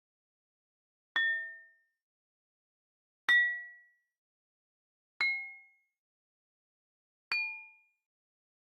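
Jaltarang: water-filled glasses struck lightly one by one with a small stick, giving four clear ringing notes about two seconds apart. Each note fades within about half a second and is a little higher than the one before, as each glass holds less water.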